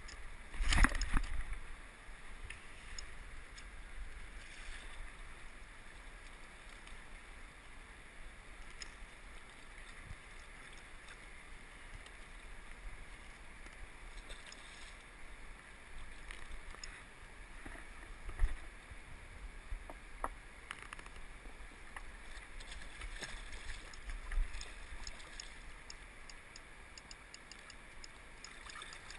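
A hooked trout being played and drawn in to a rocky river edge: water sloshing and splashing, with light ticks and handling noises from the rod and reel. There is a loud, brief rush of noise about a second in and a sharp knock a little after eighteen seconds.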